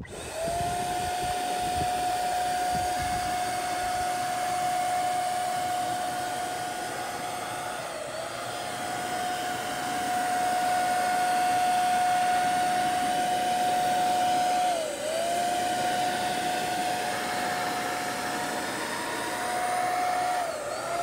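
HomeRight Super Finish Max electric HVLP paint sprayer running while spraying a clear coat. It makes a steady high whine over a hiss of air, and the pitch dips briefly three times.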